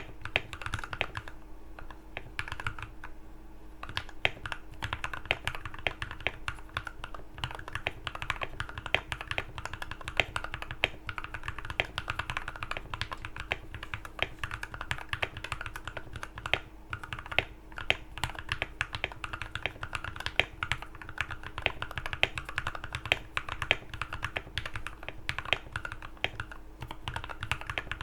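Continuous typing on a custom mechanical keyboard with lubed linear switches (Thick Thock alphas) and PBT keycaps: dense, irregular deep clacks of keys bottoming out, tape- and foam-modded for a marbly sound. A faint steady hum sits underneath.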